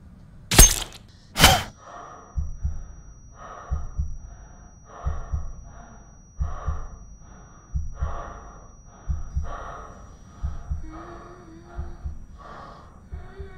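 A woman's heavy, rhythmic gasping breaths, one about every second and a half, each with a low thump under it. Two sharp, loud bursts come first, and near the end a faint hummed tone joins the breaths.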